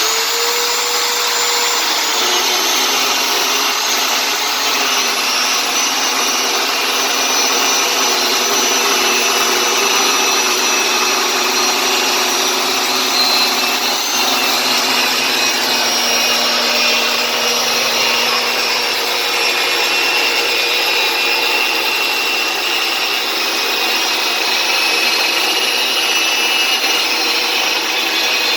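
Circular saw ripping a 2x8 board lengthwise in one long continuous cut, the motor running steadily under load with a high whine. The whine sags a little in pitch about a second in as the blade takes the wood.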